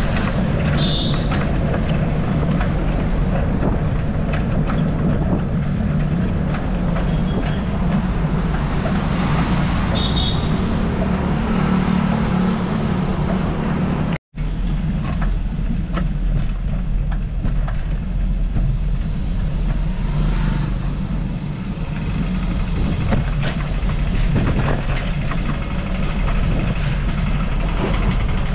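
Steady low rumble of road traffic, with the sound cutting out for a split second about halfway through.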